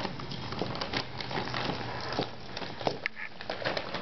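Motorized cat toy rattling and crinkling inside its plastic bag as a cat paws at it, a steady run of small clicks and rustles, with a brief high squeak about three seconds in.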